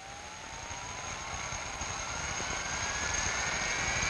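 Jet engine spooling up: a whine rising steadily in pitch over a low rumble, with a steady high whistle above it, growing louder the whole time.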